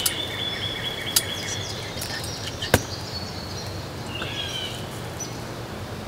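Wild songbirds calling with held, whistled notes and short chirps, over a steady outdoor background. A sharp click cuts in a little before the middle, the loudest sound.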